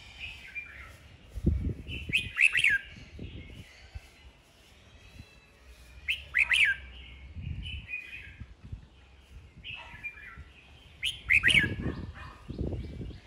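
Caged red-whiskered bulbul giving its contest song: three short, loud phrases of quick, falling whistled notes, about four seconds apart. Low rumbling bursts sound under and between the phrases.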